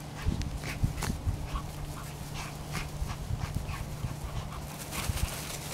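Maltese dogs playing rough, giving a quick scatter of short, high-pitched yips and whimpers, with a few low thumps.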